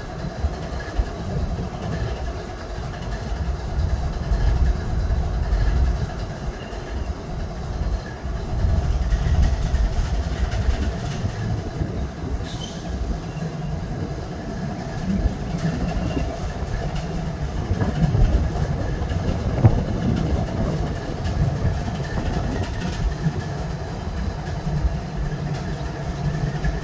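GE ES40DC diesel-electric locomotive idling steadily while standing, its GEVO-12 V12 diesel engine giving a low, continuous rumble.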